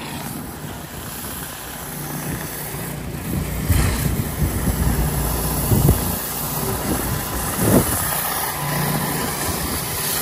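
Pressure washing a concrete fuel-station pad: a steady engine hum under the hiss of water spray, growing louder, with a few brief bumps.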